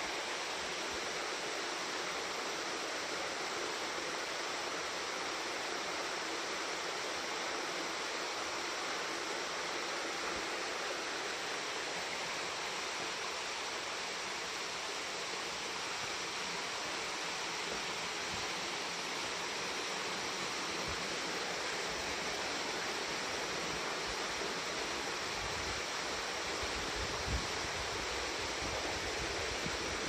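Steady rushing of a waterfall, an even roar of falling water with no change. A few faint low thumps come through in the second half.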